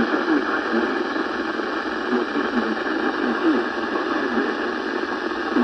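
Weather radio broadcast received through heavy static: a steady hiss with a voice faintly audible beneath it, too weak to make out, the sound thin and narrow as from a radio receiver.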